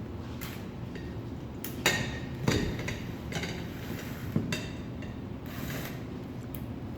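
Metal parts of a clay 3D printer knocking and clinking as a back plate is fitted and screwed on by hand, with handling and scraping between the knocks. The sharpest clinks ring briefly, the loudest about two seconds in.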